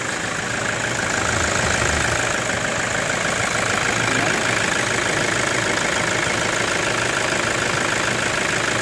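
Toyota Hilux engine idling steadily, a little louder from about a second in. The truck is running again after a no-start fault traced to a blown fuse and a grounded wire.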